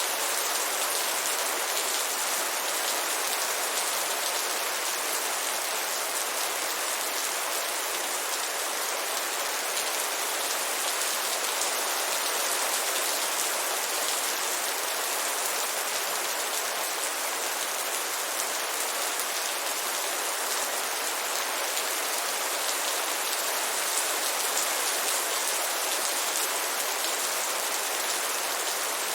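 Heavy rain falling steadily: a dense, even hiss of drops that holds the same level throughout, with little low rumble.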